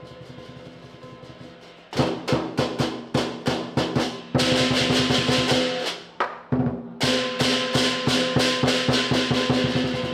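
Southern lion dance percussion: the big lion drum with cymbals and gong. A soft drum roll for about two seconds gives way to loud, fast strikes over ringing metal, with a short break about six seconds in before the beat picks up again.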